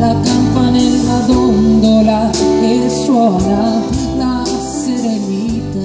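Live pop band playing: drum kit with regular cymbal hits, guitars and keyboards, under a melody line that slides up and down.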